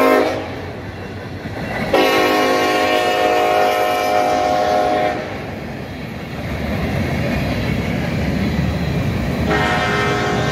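Diesel freight locomotive air horn sounding: a blast cuts off just after the start, a new one starts suddenly about two seconds in and holds for about three seconds. Then the low rumble of the train on the rails builds, and a fainter horn chord comes in near the end.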